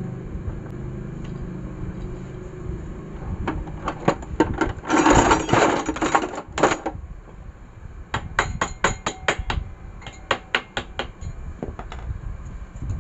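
Metal engine parts of a Honda Vario scooter clinking and tapping as the engine is reassembled by hand around the cylinder. Scattered runs of sharp metallic clicks, with a louder noisy clatter lasting about two seconds around five seconds in.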